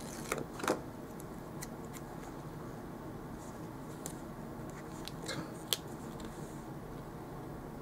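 Paper sticker sheet handled and stickers pressed onto a planner page by hand: a few short crinkles and taps, in the first second and again around five seconds in, over a steady low hum.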